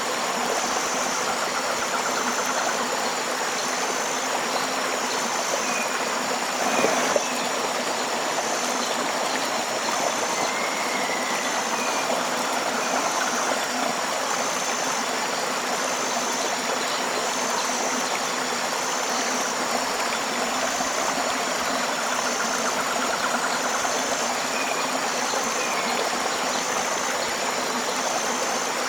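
Tropical river water flowing steadily. A high, thin call repeats evenly about every second and a half, with a few short bird chirps. A brief, louder sound comes about seven seconds in.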